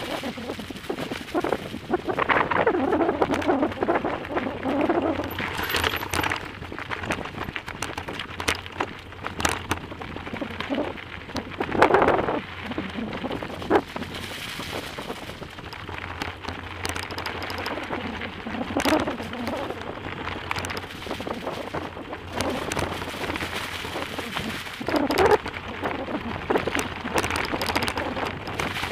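Bicycle rolling downhill on a gravel and dirt forest track, heard from a camera mounted on the bike: tyres crunching on gravel, the bike rattling over bumps, and wind buffeting the microphone in irregular swells.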